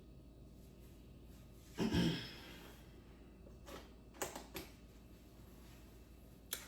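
Quiet room with one short breathy sound, like a sigh or exhale, about two seconds in, falling in pitch. A few light clicks and knocks follow later, like small objects being handled.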